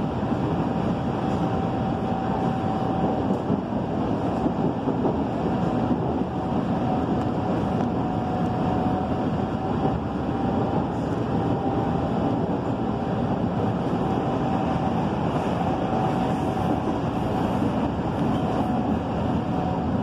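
Steady running noise of an electric commuter train heard from inside the carriage: wheels rolling on the rails, with a faint high steady whine that comes and goes.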